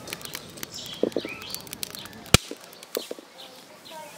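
Birds chirping, with a few light knocks as an iron kadai is set down on a clay wood-fired stove. A single sharp click comes a little past halfway.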